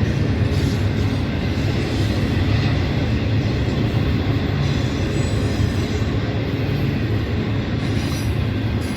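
A train passing: steady, loud noise that is strongest in the low end, with faint high-pitched tones above it.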